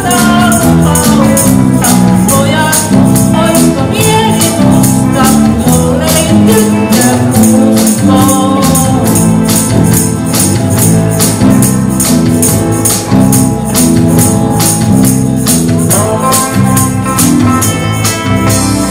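Live band music: a bass line stepping under a steady, quick beat of shaken percussion.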